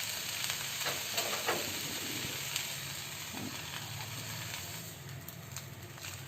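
Dosa sizzling on a hot pan, a steady hiss, with a few light scrapes of the filling being spread over it in the first couple of seconds.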